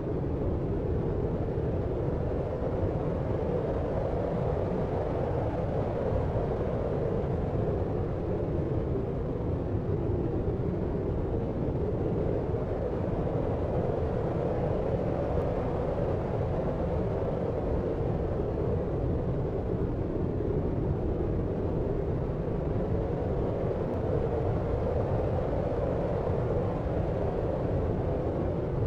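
Steady deep noise of a sleep track, a dark rumbling hiss with most of its weight low down, gently swelling and easing without any sudden sounds.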